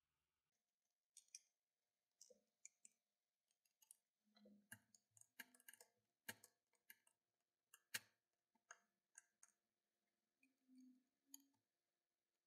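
Near silence with faint, irregular small clicks and taps scattered through it.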